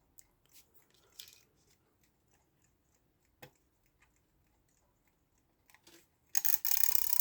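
A few faint clicks as the clock hands are turned, then about six seconds in the alarm of a Seven Star mechanical alarm clock trips. The hammer rattles loudly and very fast, a sign that the alarm goes off as the hands reach the set time.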